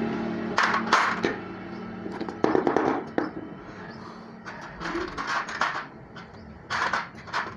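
Metal clinking and clattering: sharp knocks and rattles in four short bunches, over a faint steady hum.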